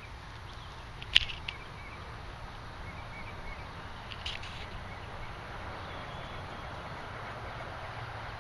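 Quiet outdoor ambience with a low steady hum and faint bird chirps, broken by a short sharp click about a second in and a weaker tick or two later.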